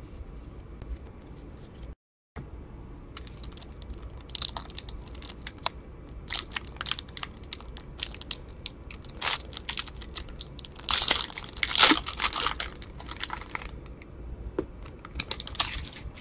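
Gloved hands handling football trading cards and tearing open a foil card pack, the wrapper crinkling and crackling in quick bursts, loudest about three-quarters of the way through.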